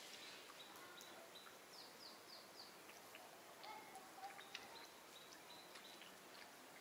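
Faint outdoor ambience with small bird calls: a short high note repeated every so often, and a quick run of four falling chirps about two seconds in, with a few soft clicks.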